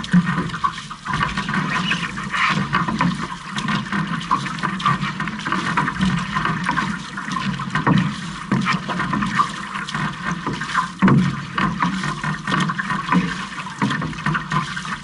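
Water rushing and splashing along the float and hull of a six-person outrigger canoe under way, with the crew's paddle blades catching the water stroke after stroke.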